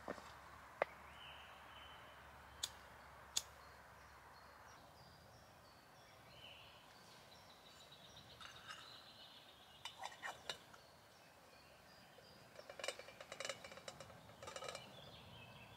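Light clicks and metal clinks of titanium camp cookware being handled, loudest in quick runs near the end as a pot is set onto the windscreen over the alcohol stove. Faint birdsong in the background.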